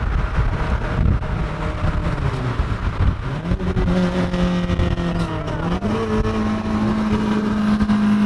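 Ford Focus ST's turbocharged four-cylinder, with an aftermarket downpipe and Takeda exhaust, pulling under acceleration. Its pitch climbs, dips and rises again at a gear change about five and a half seconds in, then holds a steady drone.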